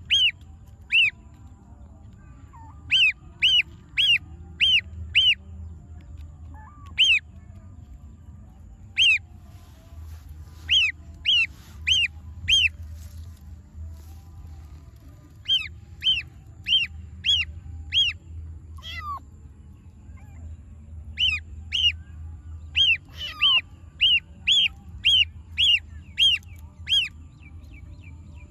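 Gosling peeping over and over in short, high, falling peeps that come in quick runs of three to seven, with a few lower kitten mews between the runs.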